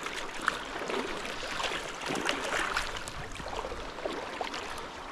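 Shallow trout stream rippling, with water sloshing and splashing unevenly around the legs of someone wading downstream through the current.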